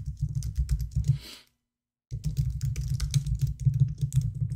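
Typing on a computer keyboard: quick, irregular keystrokes with a short break about a second and a half in.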